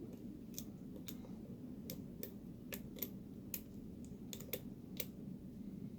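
Pick and tension wrench working the pins inside a Master Lock 141 padlock during single-pin picking: faint, irregularly spaced small metallic clicks and ticks, about a dozen over a few seconds.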